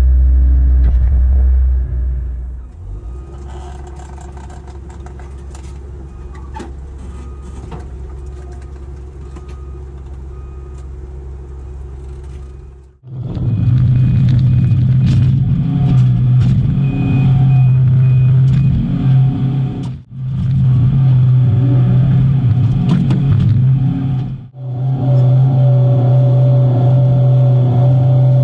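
Cat 312CL excavator's diesel engine running steadily. It is a deep drone at first, then quieter with many sharp clicks and knocks from about three seconds in, then from about halfway a loud, higher steady drone that cuts off abruptly twice and comes back.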